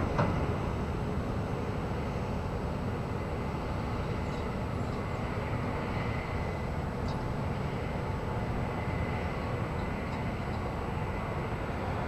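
Diesel-engined harvest machinery running in a steady low rumble, with a short knock at the very start.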